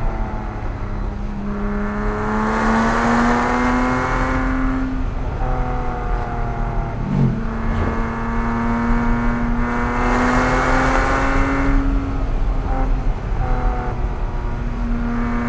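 Porsche 987.1 Cayman S's 3.4-litre flat-six accelerating through curves, its note rising and growing louder three times as the throttle is opened and dropping back between. There is a quick dip in revs about seven seconds in.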